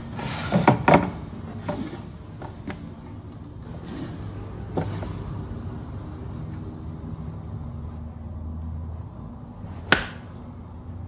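Scattered handling sounds: short rustles and light clicks, several in the first second, then fewer. One sharp click about ten seconds in is the loudest.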